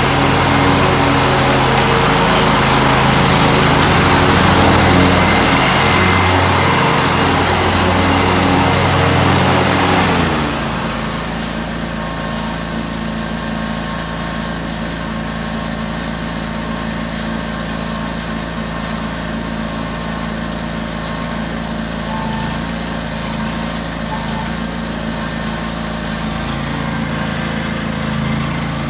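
A John Deere X485 garden tractor's 25 hp liquid-cooled, fuel-injected Kawasaki V-twin runs as the tractor drives about. It runs loud and hard for the first ten seconds, then drops to a quieter, smoother run about ten seconds in.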